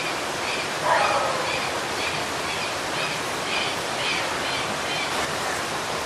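Waterfall rushing steadily, with a faint high chirp repeating about twice a second over it and a brief swell about a second in.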